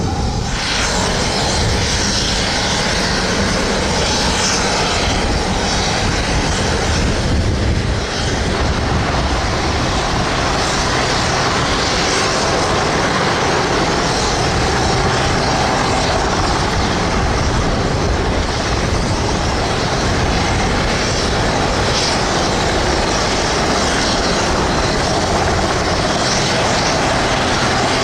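Westland Sea King helicopter's twin turboshaft engines and main and tail rotors running at high power as it hovers low. The noise is loud and steady, with a brief dip about eight seconds in.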